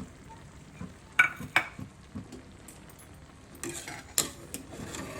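Metal spoon clinking and scraping against a cooking pot while biryani layers are spooned in: two sharp clinks about a second in and a few more around four seconds in.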